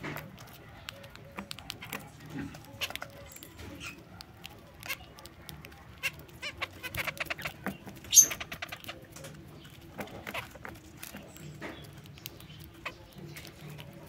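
Zebra finches pecking at millet seed in a metal feeding tray: a busy run of small irregular clicks and seed rustles, with short bird calls now and then. A single sharper, louder sound about eight seconds in.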